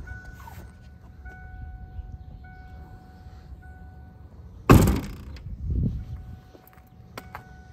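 A car panel being shut: one heavy thunk about two-thirds of the way in, followed a second later by a softer, duller thump.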